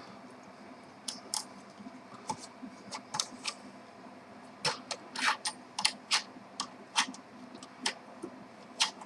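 Irregular sharp clicks and light rattles of the soldering station's small parts being handled and pushed into place, more frequent in the second half.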